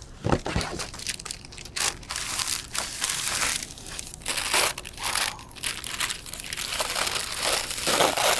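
Tissue paper rustling and crinkling in irregular bursts, handled and crumpled as a gift is unwrapped.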